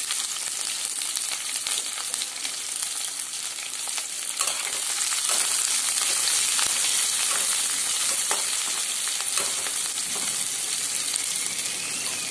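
Sliced onions sizzling in hot oil in a metal kadhai, with a spatula stirring and scraping them against the pan. The sizzle grows louder about four and a half seconds in as they are stirred, and there are a few scraping clicks.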